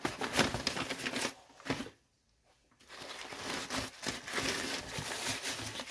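Brown kraft packing paper being crumpled and pulled out of a cardboard box, a dense crinkling rustle, with a short break about two seconds in.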